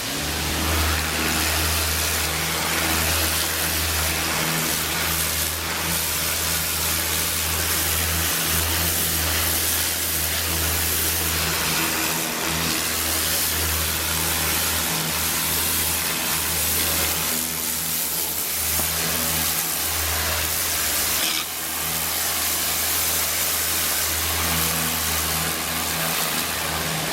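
Ryobi 1600 PSI electric pressure washer running: a steady low motor-pump hum under the hiss of the water jet. It starts suddenly and dips briefly a few times along the way.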